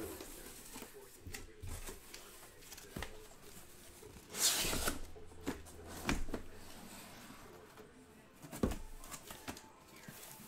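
Cardboard case of shrink-wrapped trading-card boxes being opened and lifted off by hand: cardboard scraping and rustling with scattered knocks, and a louder rasp about four seconds in.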